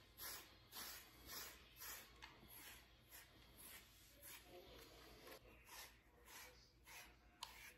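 Faint, regular swishes of a grooming brush stroked through an American Akita's fur, about two strokes a second.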